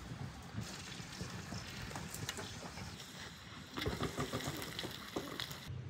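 Food simmering and bubbling in a deep pan under a glass lid. About four seconds in, a few knocks as the glass lid is lifted off the pan.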